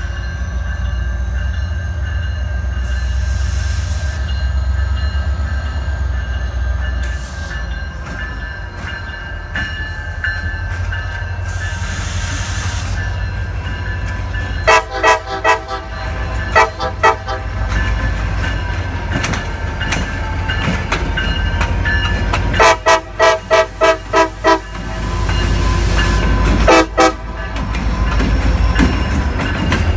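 CSX SD40-3 diesel locomotive running with a steady low rumble while its multi-note air horn sounds in quick strings of short toots. There are about five around the middle, a faster run of about seven a few seconds later, and a last pair near the end.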